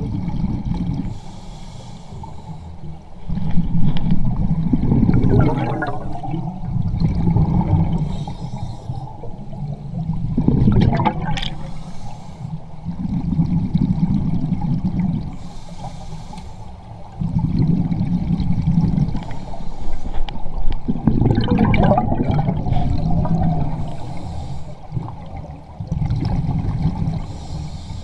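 Scuba regulator breathing heard underwater: short hissing inhales and longer low, bubbling exhale rumbles, repeating every few seconds, with a few gurgles of bubbles rising past.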